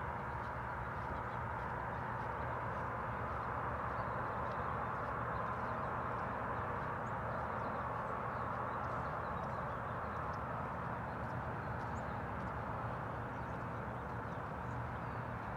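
Steady outdoor background noise, an even hiss in the middle range with a faint low hum, and a few faint, short, high chirps scattered through it.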